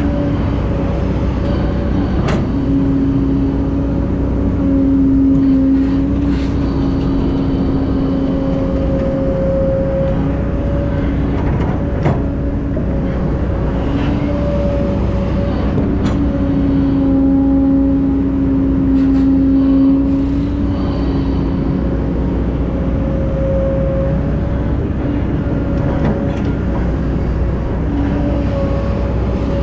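Excavator's diesel engine running steadily under load, a loud drone with a steady tone that swells for a few seconds at a time as it works, and a few sharp clanks.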